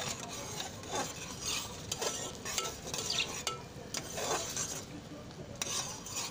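Steel spoon stirring boiling falsa berry syrup in a metal saucepan: scraping strokes and clicks of the spoon against the pan about once a second, over the bubbling of the boiling syrup.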